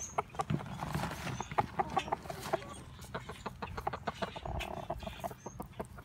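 Rooster clucking softly in a run of quick, short clucks, with a longer drawn-out call about four and a half seconds in. It is a nesting call, showing a hen a nest spot.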